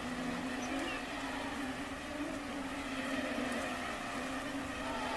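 Mosquitoes buzzing in a steady, slightly wavering drone.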